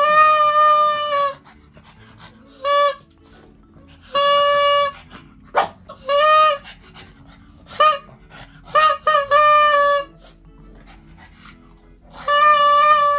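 Plastic toy horn blown in about eight toots on one steady pitch, some very short and some over a second long.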